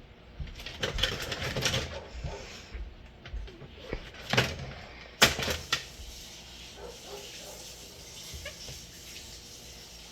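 Plastic parts of a Timex alarm clock being handled and pried apart: scattered clicks and knocks, a louder knock about four seconds in and a sharp snap just after five seconds, then a few small taps.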